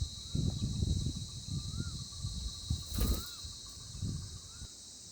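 Outdoor ambience: a steady high insect drone, uneven gusts of wind rumbling on the microphone, and a short rising-and-falling chirp repeated about once a second.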